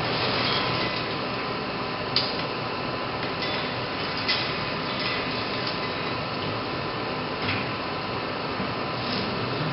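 Steady hum of machinery and ventilation in an IMAX projection booth, with a few sharp clicks and knocks as the 70mm film reels and projector controls are handled.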